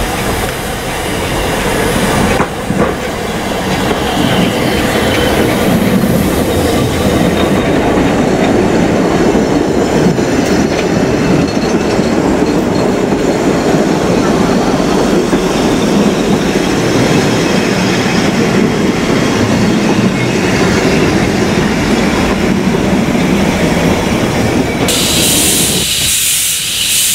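Narrow-gauge steam train running, heard from on board a passenger coach: a steady rumble of coach wheels clattering over the rail joints. Near the end the rolling dies down and a loud hiss of steam from the locomotive takes over.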